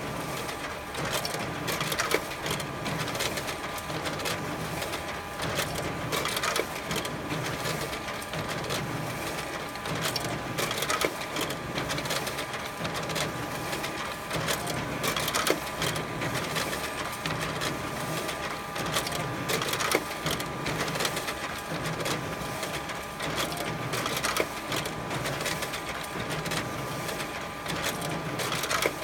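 A 41-page-per-minute office copier printing a copy job, with a steady whir and fast ticking as sheets feed through and drop into the output tray.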